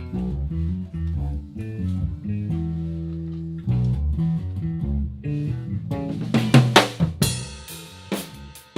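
Band playing in a rehearsal studio: a low guitar riff moves in stepping notes, then the drum kit comes in about six seconds in with drum hits and cymbal crashes.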